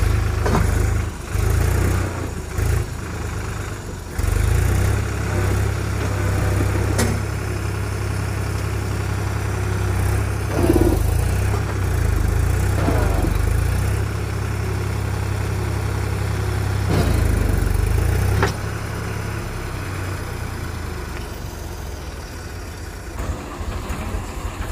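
Swaraj tractor diesel engines running under load, surging and easing off in turns, then dropping back about three-quarters of the way through, as they strain to pull a tractor stuck in mud free.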